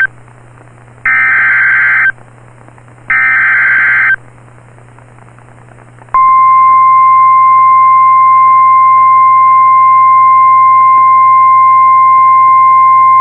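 NOAA Weather Radio emergency alert signalling: two SAME header data bursts, each about a second long and a second apart, then a couple of seconds of hiss. About six seconds in, the steady 1050 Hz warning alarm tone comes on and holds. It announces a new severe thunderstorm warning.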